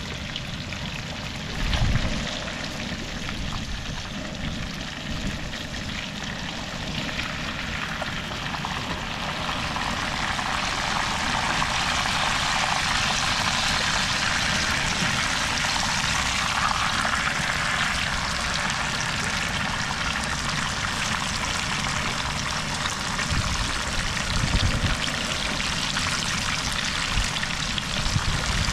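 Porgy and sweet potato frying in hot oil: a steady sizzle that grows louder about ten seconds in. There is a dull bump about two seconds in.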